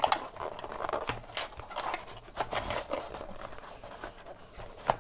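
Cardboard packaging being handled: rustling, scraping and light clicks as a box insert and lid are moved about, with a few sharper ticks.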